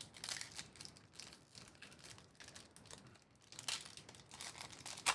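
Foil trading-card pack wrappers crinkling as packs are handled and opened: an irregular run of crackles, with one sharp crackle near the end.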